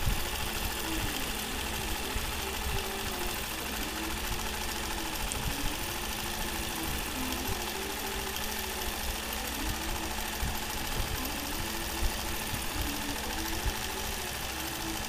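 Nolting Pro longarm quilting machine stitching under IntelliQuilter computer control: a steady running hum with a motor whine that rises and falls about every two seconds as the machine traces curved arcs, and a few light ticks.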